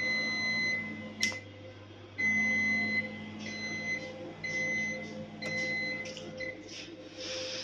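Electronic alarm buzzer on the UV inkjet printer beeping in a high, steady tone: one long beep of about a second, then five shorter beeps of uneven length, over a low machine hum.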